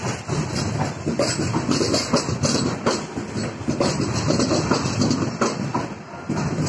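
Passenger coaches of an Indian Railways LHB rake rolling past close by, their wheels clattering over the rail joints in quick, irregular knocks over a steady rumble.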